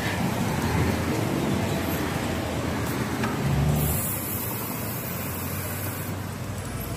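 Road traffic noise on a busy city street, heard from a moving bicycle among the cars: a steady rumble of car engines and tyres, with a louder low hum about three and a half seconds in.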